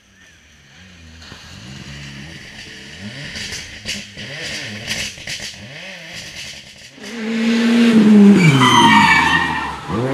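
A rally car's engine coming nearer, revving up and down through gear changes, with sharp cracks in the middle. From about seven seconds in it passes close and loud: the revs drop and the tyres squeal through the corner.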